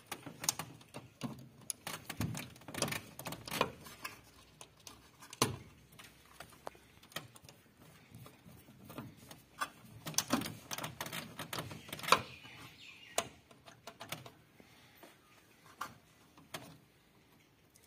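Scattered clicks and light knocks from hand work on a tower AC indoor unit's electrical terminal block, as wires are fitted to the terminals. They come irregularly, several a second at times, with pauses between.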